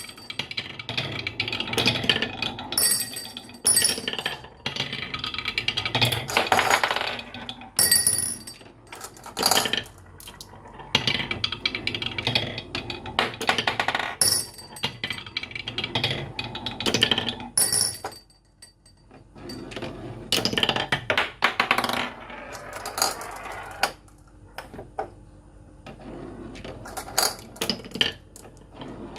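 Marbles rolling and clattering down a toy marble run track, with a rapid run of clicks and knocks and a few high ringing clinks as they strike the pieces.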